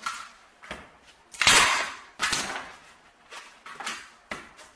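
Hand staple gun firing staples through canvas into a wooden stretcher bar: two sharp snaps, about one and a half and two seconds in, among softer clicks and rustles of the canvas being smoothed and pulled taut.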